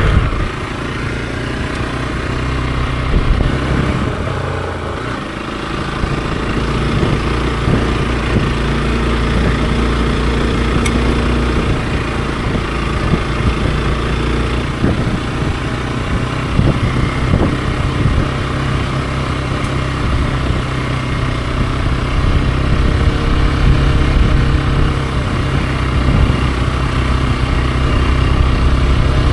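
Hero XPulse 200 4V's single-cylinder engine running as the motorcycle is ridden, its note easing off around five seconds in, then picking up and holding fairly steady.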